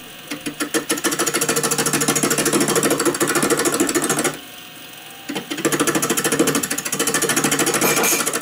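Bowl gouge cutting into a spinning, out-of-round sycamore branch blank on a wood lathe, making a fast, even hammering as the edge strikes the uneven wood on each turn. The cut stops for about a second just past the middle, then starts again.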